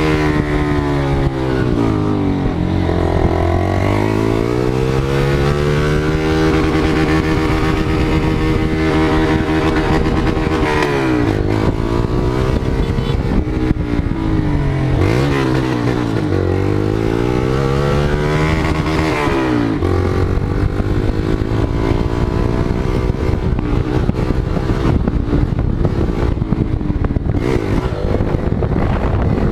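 Motorcycle engine revving, its engine speed dropping and climbing again several times in long sweeps, then running steadier and rougher after about twenty seconds.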